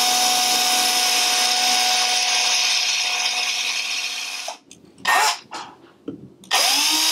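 Electric drill boring out the die-cast metal rivet of a Hot Wheels chassis: the motor runs at a steady whine with the hiss of the bit cutting, stops about four and a half seconds in, then spins back up near the end.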